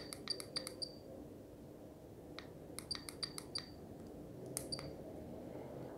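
Sequre SI012 soldering iron's buzzer beeping quickly, with a click at each press of its menu button as the working temperature setting is stepped. There are quick runs of short high beeps, about four a second: one stops about a second in, another comes around three seconds in, and a few more near the end.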